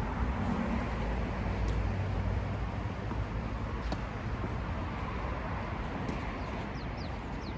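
Steady low rumble of distant traffic, with one sharp click about four seconds in and a few short, high, falling chirps near the end.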